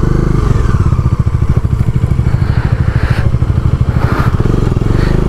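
Single-cylinder engine of a Bajaj Dominar 400 motorcycle running steadily under load as it climbs a rocky dirt track, with a couple of short rattles about three and four seconds in. The rider says the air filter is clogged with dust, so the bike struggles to pull.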